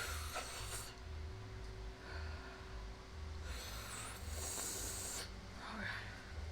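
A person breathing sharply in and out through the mouth, two hissing breaths, a short one at the start and a longer one about halfway through, as she tries to cool the burn of very spicy sauce.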